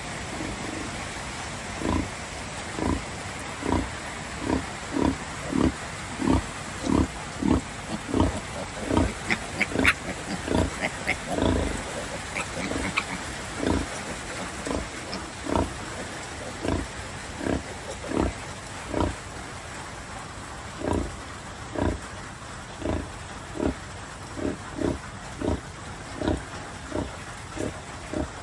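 A sow grunting in a steady rhythm, about two grunts a second at first and slowing to about one a second later: the rhythmic grunting of a sow nursing her piglets. A few short high squeaks come near the middle.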